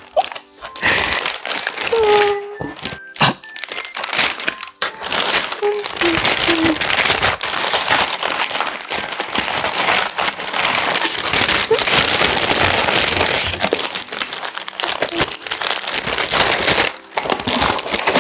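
Packaging crinkling and rustling as it is handled, a few scattered clicks at first and then continuous crinkling for most of the time, over background music.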